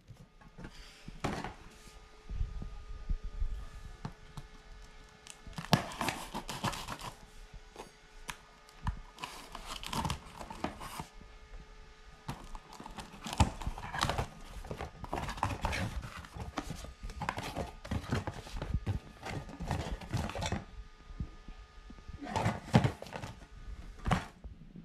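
Cardboard boxes being handled and shifted by hand: repeated bursts of rustling and scraping cardboard with dull thunks, in a small room.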